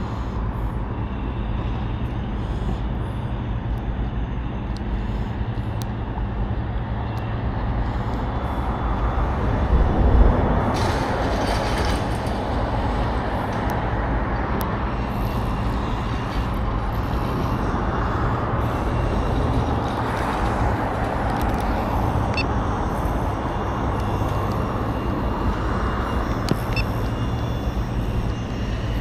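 Road traffic going by, a steady rumble of passing vehicles, with a louder heavy vehicle about a third of the way in.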